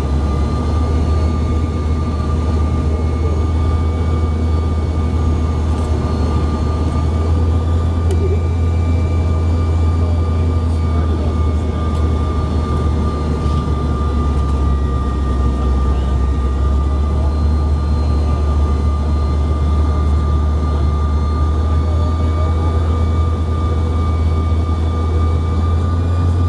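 Cabin noise of a Canadair CRJ-700 regional jet in flight: a loud, steady low rumble with a constant whine from its rear-mounted GE CF34 turbofan engines, and fainter higher tones that drift slightly in pitch.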